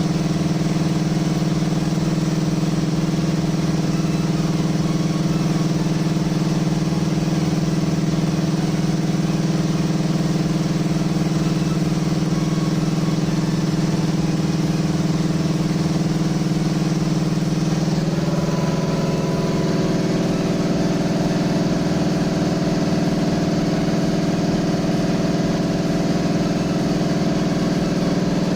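NK electric three-piston air compressor running steadily under load, with an even pulsing from the pistons. About 18 seconds in its pitch shifts and a higher hum joins as it keeps pumping up pressure.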